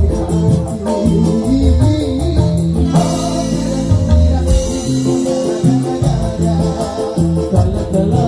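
Live dangdut band playing: keyboard, guitar and drums with a steady, quick beat, a bright crash about three seconds in, and a male singer singing over it.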